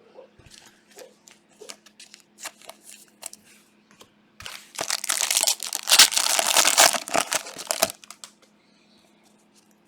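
Scattered light clicks and rustles, then about halfway through a few seconds of loud crinkling and tearing of a trading-card pack wrapper as it is ripped open.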